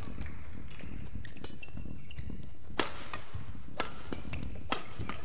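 Badminton rackets striking a shuttlecock in a rally: fainter taps early on, then three sharp hits about a second apart in the second half. A brief high squeak comes before the hits, over a steady low hall hum.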